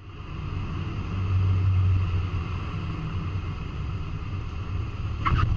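Cessna 152's four-cylinder Lycoming engine and propeller running at low power with airflow noise in the cabin during the landing flare, a steady low drone. A short high squeal sounds about five seconds in.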